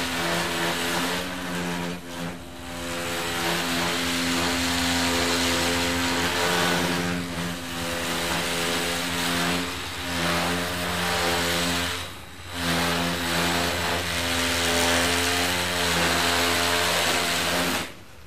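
Zhiyun Crane 2 gimbal's motors, mainly the roll motor on the side, vibrating with a loud, steady buzz while the gimbal runs in inverted (upside-down) mode: a fault of this unit that starts as soon as it is switched to inverted mode. The buzz dips briefly twice and stops suddenly near the end.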